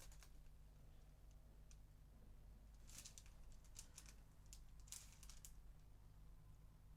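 Near silence over a steady low hum, broken by two short clusters of faint, light clicks and taps about three and five seconds in, from small objects being handled at a crafting table.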